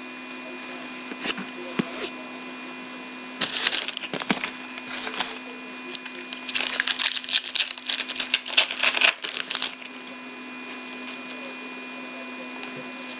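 Foil trading-card pack being torn open and crinkled by hand, with the cards slid and flipped through, in two spells of crackling rustle, about three and a half seconds in and again from about six to nine and a half seconds. A steady faint hum runs underneath.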